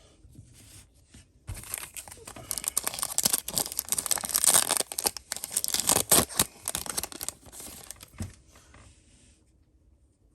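Foil booster-pack wrapper being torn open and crinkled, a dense crackling that lasts several seconds and dies away shortly before the end.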